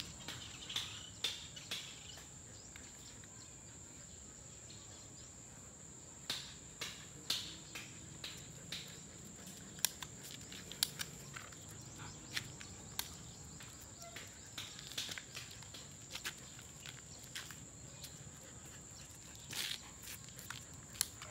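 A steady high-pitched insect drone, with scattered short taps and scuffs of footsteps on a concrete road.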